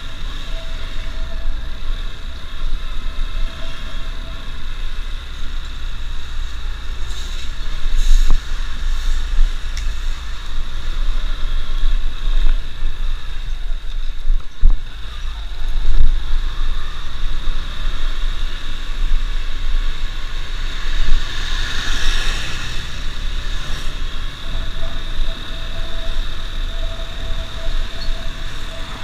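Motorcycle riding along a street, its engine under a heavy rumble of wind on the mounted camera's microphone, which rises and falls unevenly.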